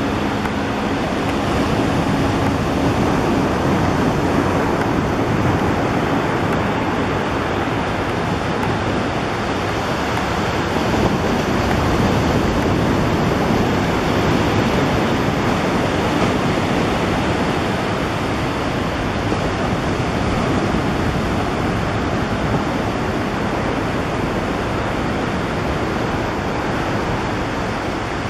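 Steady rushing wind noise on the microphone. Under it, the engine of a weight-shift microlight trike flying overhead drones as a faint low hum, clearest in the first few seconds.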